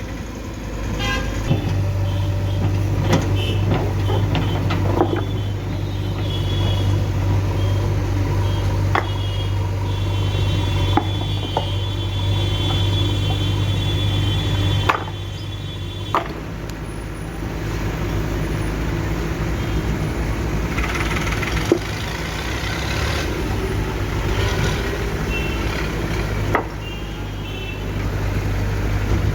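Diesel engine of a JCB 3DX backhoe loader running steadily while it works, with scattered sharp knocks and clanks and a few stretches of a high tone. The sound drops in level twice, about halfway through and near the end.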